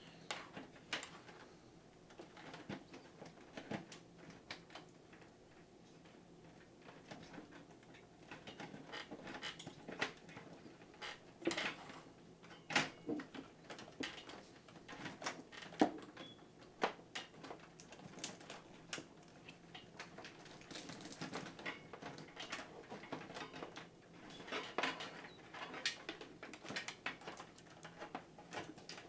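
Light, scattered clicks, taps and rustling of cables and plastic zip ties being handled and fastened inside a PC case.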